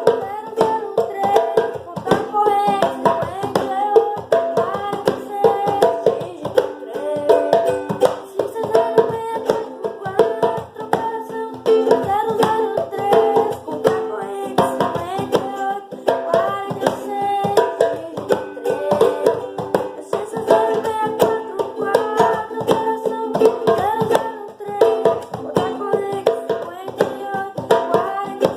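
Music: singing over a quick, even rhythm of struck or strummed strokes.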